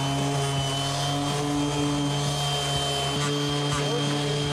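Handheld power tool running steadily with a fine abrasive pad, smoothing and brightening stainless steel as a finishing pass.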